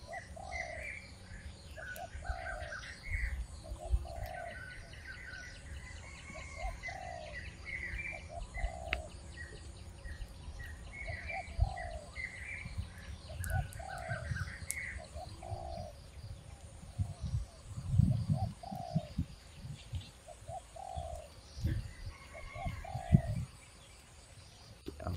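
Birds calling: one bird repeats a short falling note about once a second over higher chirping from others. A few low thuds come about two-thirds of the way through.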